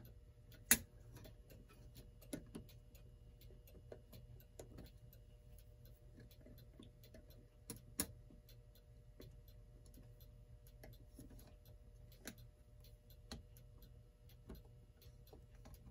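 Small screwdriver prying at clock hands on their stem: faint, irregular metallic clicks and scrapes, with sharper clicks about a second in and about eight seconds in.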